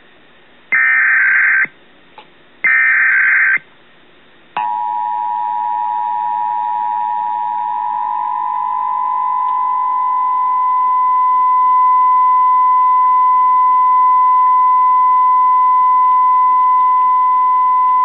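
Emergency Alert System warning tones: two one-second bursts of harsh digital data screech, then, about four and a half seconds in, a steady two-note attention tone begins and holds, loud and unwavering.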